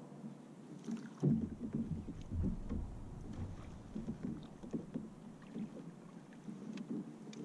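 Water sloshing and slapping against a plastic fishing kayak's hull, heavier from about a second in, with a few small clicks from handling the rod and reel while a fish is played.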